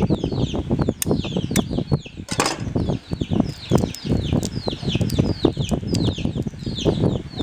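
Many small birds chirping continuously: short, high, falling peeps, two or three a second, over a steady low rustling and scuffling.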